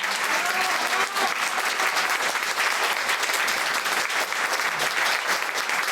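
Audience applauding, a dense, steady clatter of many hands clapping, with a few voices briefly audible in the first second.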